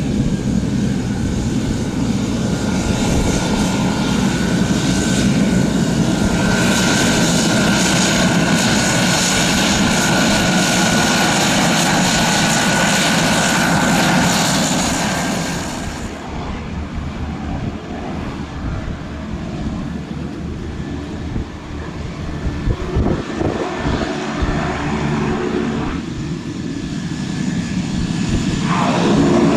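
Beechcraft 1900 twin turboprops taxiing, their Pratt & Whitney PT6A engines at low power giving a steady propeller drone with a high turbine whine through the first half. The sound drops a little past the middle, then grows louder near the end as a second Beech 1900 taxis closer.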